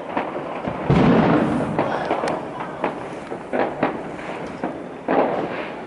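Fireworks and firecrackers going off all around: a run of sharp cracks and bangs over a rumbling background, with a heavy boom about a second in and another near the end.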